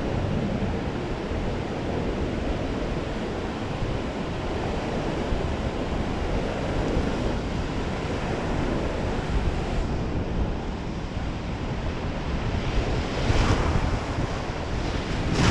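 Rushing whitewater of a large river rapid heard from a raft moving toward it, a steady wash of water noise with wind buffeting the microphone. It swells louder near the end as the raft reaches the waves.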